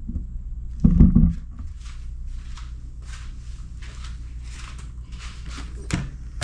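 Handling noise as motorcycle helmets are swapped on a weighing scale: a dull thud about a second in, then soft rustling and a light knock near the end.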